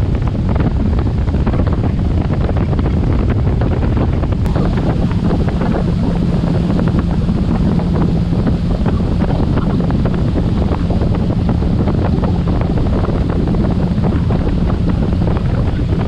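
Heavy wind buffeting on the microphone over the steady drone of a boat's outboard motor running at speed and water rushing in the wake. A steady engine hum comes through more clearly about four seconds in.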